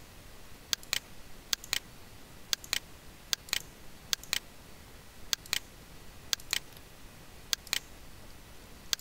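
Computer mouse button clicking in close pairs, about one pair a second, while dimensions are placed in a CAD program.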